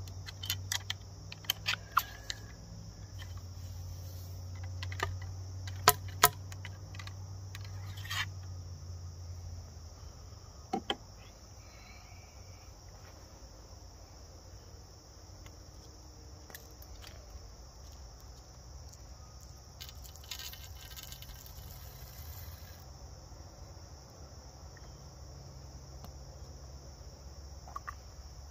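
A muzzleloading shotgun being reloaded: a run of sharp clicks and knocks from the wooden ramrod working in the barrel during the first nine seconds, the loudest two close together about six seconds in. A steady high chorus of insects runs underneath throughout.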